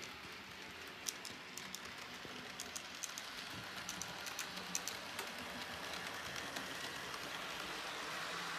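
N gauge Dapol HST-P model train running along the layout's track: a steady running noise with many light, irregular clicks as the wheels cross points and rail joints, the clicks thinning out after about five seconds.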